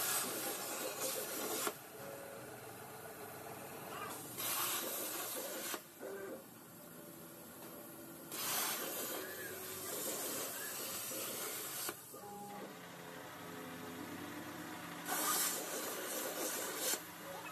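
CNC plasma cutting torch hissing as it cuts through steel sheet. It fires in four bursts with quieter gaps between, the third burst the longest at about three seconds.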